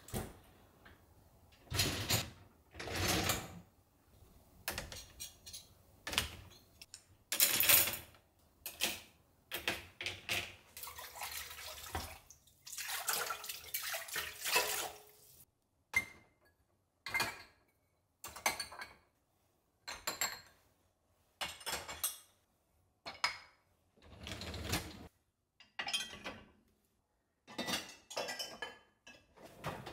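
Kitchen work: a string of separate clinks, knocks and scrapes of dishes and utensils being handled, with a few seconds of running water near the middle.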